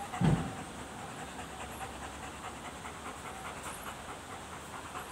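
A large white curly-coated dog panting steadily with its tongue out and saliva dripping. A single dull thump about a third of a second in is the loudest sound.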